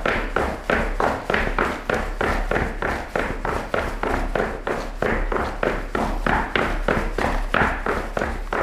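Cleated soccer shoes running on a hard floor: a quick, even rhythm of sharp footfalls.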